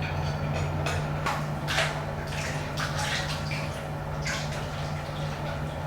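Water splashing and dripping in a bathtub, a few irregular small splashes over a steady low hum.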